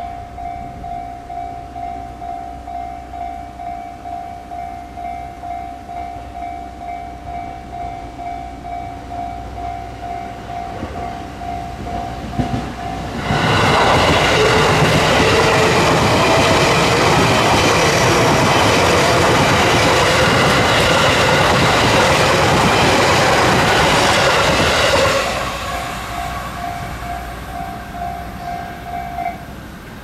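Japanese level-crossing warning bell ringing about twice a second. About 13 seconds in, an E233-series electric commuter train passes close by, and its wheels and running noise drown the bell for about 12 seconds. The bell is heard again after the train has passed and stops shortly before the end.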